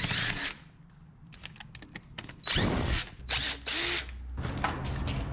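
DeWalt cordless driver spinning screws out of a plastic bin-holder panel fixed to a block wall, in short runs: one at the start, then two close together about two and a half to four seconds in.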